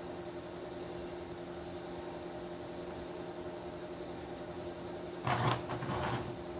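A steady background hum with a few fixed tones, and about five seconds in two brief scuffing rustles as thin plywood model-boat parts are handled on a workbench.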